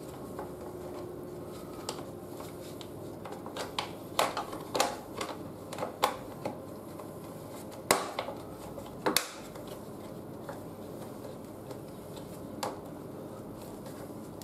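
Irregular light clicks and knocks of a plastic fork cover and brake pipes being handled and pressed into place on a motorcycle's front fork, with two sharper knocks about eight and nine seconds in.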